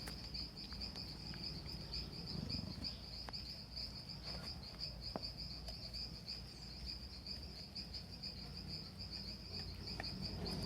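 Insect chirping in a steady, fast, high-pitched pulse without a break, with a few faint scattered clicks over it.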